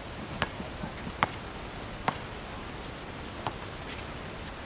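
A basketball bouncing on a concrete court: a handful of sharp, separate thuds at uneven spacing, roughly a second apart, over steady background noise.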